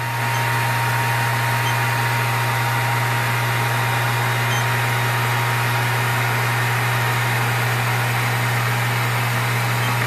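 Handheld hair dryer running steadily: an even rush of air over a low motor hum, with a faint steady whine.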